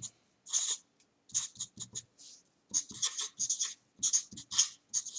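Felt-tip marker writing block letters on paper: short scratchy strokes, one after another with brief pauses between them.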